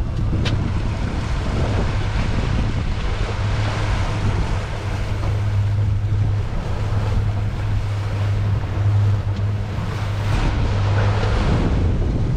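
Mercury outboard motor running at low speed, a steady low hum that shifts about ten seconds in. Water washes around the boat and wind buffets the microphone.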